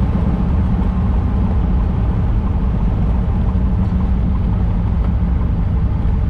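Single-engine light aircraft's piston engine at idle with the propeller turning during the landing rollout, heard close up from the cowling as a steady low drone with rushing air.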